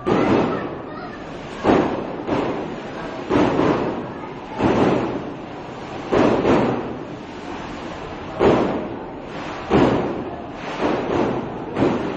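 Fireworks going off in a rapid series: about a dozen bangs, roughly one a second and sometimes two close together, each trailing off before the next.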